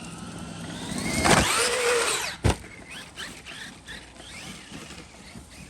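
Traxxas Maxx RC truck's electric motor and drivetrain whining up steeply in pitch under full throttle. A single sharp thump comes about two and a half seconds in, followed by shorter, fainter bursts of rising whine.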